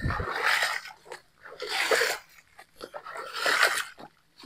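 A person breathing heavily close to the microphone, a loud breath about every second and a half, with a brief low thump at the very start.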